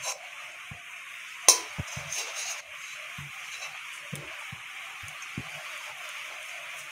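Ghee melting in a hot metal kadai with a faint, steady sizzle, while a spatula pushes it around. There are light scrapes and knocks, and one sharp tap of the spatula on the pan about a second and a half in.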